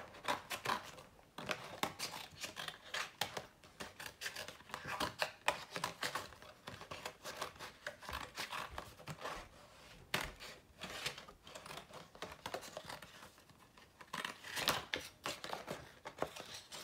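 Scissors cutting stiff paper in quick, repeated snips, with the sheet rustling as it is turned.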